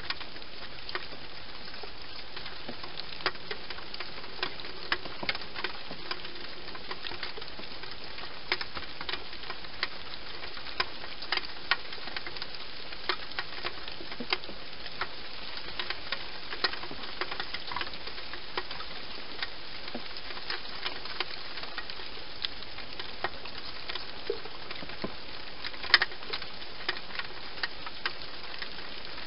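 Steady hiss with scattered small, irregular clicks and crackles, one louder click near the end.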